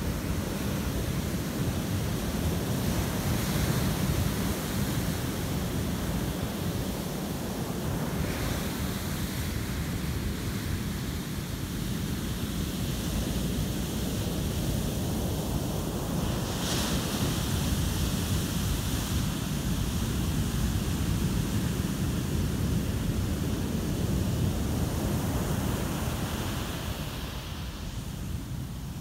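Heavy ocean surf breaking and washing up a sandy beach: a continuous deep rumble of crashing waves that swells and eases with the sets. Wind buffets the microphone.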